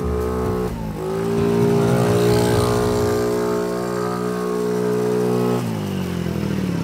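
Small children's quad bike running under a rider, dipping then revving up just under a second in, holding a steady pitch, then easing off near the end.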